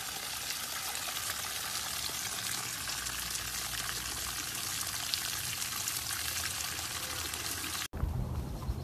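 A steady stream of water falling and splashing into a water-filled plastic tub with a dog lying in it, spilling over the rim. It cuts off suddenly near the end and gives way to a low rumble.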